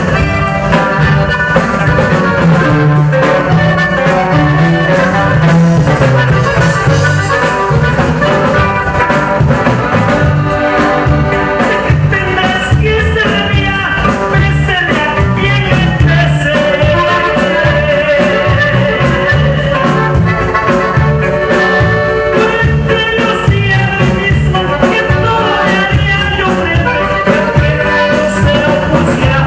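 Loud live dance-band music with accordion over a steady beat and bass.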